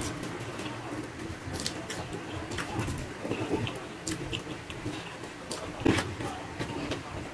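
Close-up eating sounds of a man eating rice by hand: chewing and lip smacks, with his fingers gathering and pressing rice on a plastic tray, and scattered short clicks, one louder smack about six seconds in.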